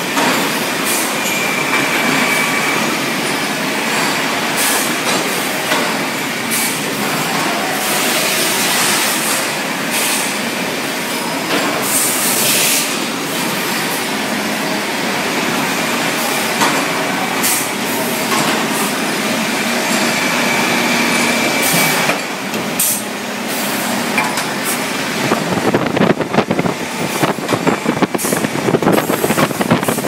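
Loud, steady din of a metalworking factory floor making stainless steel hardware, with many machines running at once, metal clattering and a couple of brief high squeals. In the last few seconds a fast, close rattle sets in as the camera reaches a multi-spindle drilling machine cutting metal.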